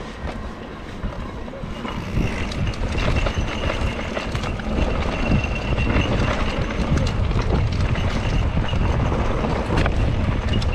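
Mountain bike riding over a dirt singletrack: tyres rolling on dirt and stones and the bike rattling over bumps, with wind rumbling on the handlebar-mounted microphone.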